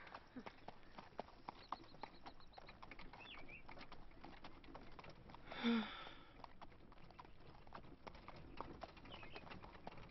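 A faint string of small, irregular pops and clicks, several a second, which is Donkey in Shrek 2 popping his lips over and over out of boredom. Carriage horses' hooves clip-clop underneath. About six seconds in there is a short, louder vocal sound.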